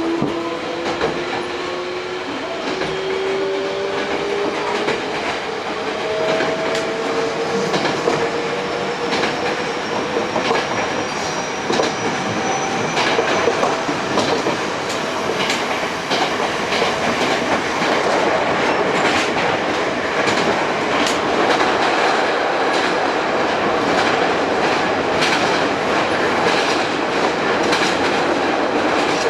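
Hankyu 8000 series electric train with a Toshiba GTO-VVVF inverter, heard from inside a car while accelerating: the inverter and traction-motor whine climbs slowly in pitch over several tones. As speed builds, wheel and rail rolling noise grows, with a quickening clickety-clack of the wheels over rail joints.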